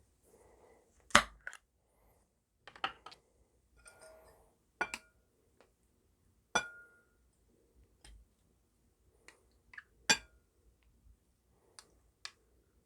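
Glassware clinking: a string of irregular sharp clinks, some ringing briefly, the loudest about a second in and again about ten seconds in.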